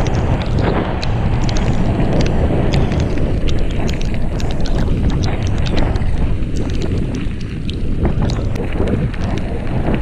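Wind buffeting the action camera's microphone on a fast bicycle descent, a heavy steady rumble, with many small clicks and rattles from the bike running over wet, rough gravel.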